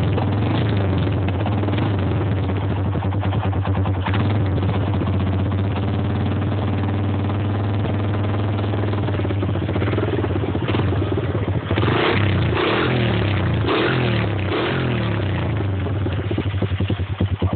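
A 125cc quad bike engine on its original exhaust, running steadily, revved up and down several times in the second half, then settling into a pulsing, uneven idle near the end.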